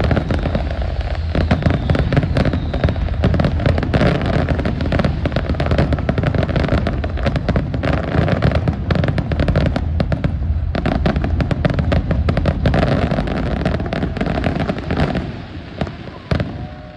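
Aerial fireworks in a dense barrage, with many shells bursting almost on top of one another in a steady run of booms and crackling. The barrage thins out and drops away over the last couple of seconds.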